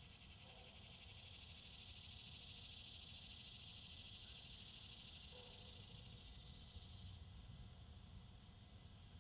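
Faint chorus of insects: a high, fast-pulsing buzz that swells over the first couple of seconds and drops back about seven seconds in.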